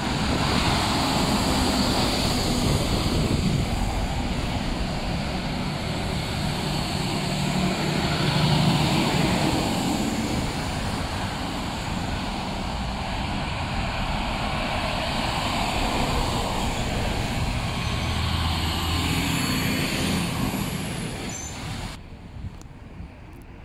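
Busy road traffic passing close by on wet pavement: a dump truck with a dump trailer goes past first, then cars and more trucks, with steady tyre hiss and diesel engines swelling as vehicles pass. The traffic noise drops off sharply about 22 seconds in as the road empties.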